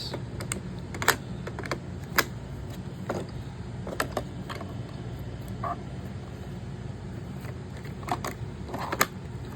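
Scattered clicks and knocks of plastic parts being handled and fitted back onto a robot vacuum, over a steady low hum.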